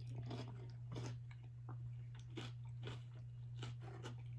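Close-miked chewing and biting of food, with irregular wet smacks and crunches, over a steady low hum.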